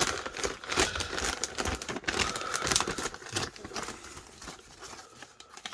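Wrapping paper being crumpled and pulled apart by hand, an irregular crackling and rustling that thins out towards the end.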